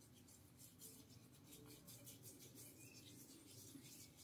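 Near silence, with faint scratchy rubbing of hands massaging a creamy mask into a beard.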